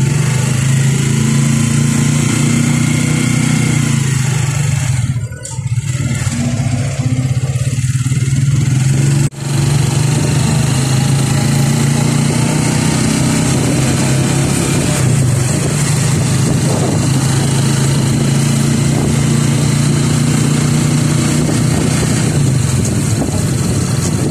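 Motor vehicle engine running steadily with road and wind noise, heard from aboard the moving vehicle. The sound dips briefly twice, about five and nine seconds in.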